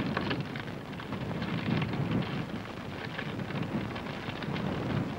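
A large building fire burning: a rumbling noise with crackling, surging and easing unevenly.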